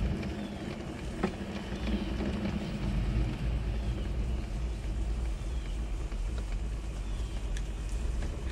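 Traxxas TRX-4 RC crawler's electric motor and geared drivetrain whining steadily as the truck crawls slowly over a pile of wood, heard from a camera mounted on the truck. A sharp knock about a second in.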